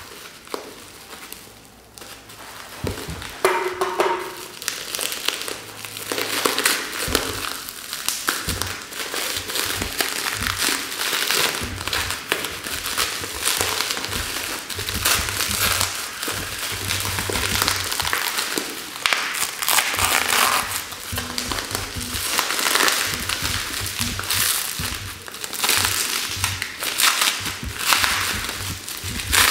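Plastic bubble wrap and cling film crinkling and crackling as they are pulled and peeled off a box by hand. It is quiet for the first few seconds, then the crinkling goes on almost without a break.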